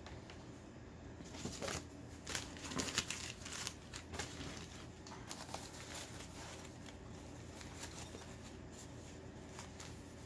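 Rustling and crinkling of packing material as an item is unwrapped from a box, busiest between about one and four seconds in, then fainter.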